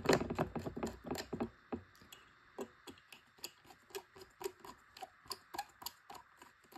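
Small screwdriver driving a long stainless steel screw into an open hard drive's head actuator assembly, making small metal clicks. The clicks come faster and louder in the first second and a half, then settle to a steady run of about three a second.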